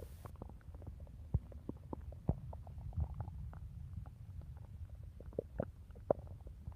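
A woman's hungry stomach growling: a continuous low rumble with frequent short gurgles and a few sharper pops scattered through.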